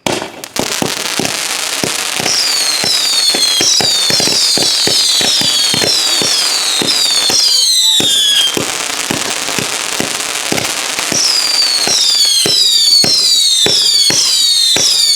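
Consumer fireworks going off in a loud, sudden burst: a rapid string of sharp bangs, several a second, with repeated falling whistles layered over them. The whistles pause briefly in the middle and then start again.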